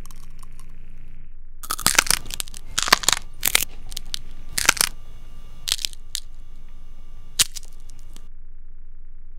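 A run of sharp, irregular cracks and crunches, a bone-cracking sound effect for a contorting body. It starts about two seconds in, is densest over the next three seconds and stops about eight seconds in. A low steady hum runs underneath.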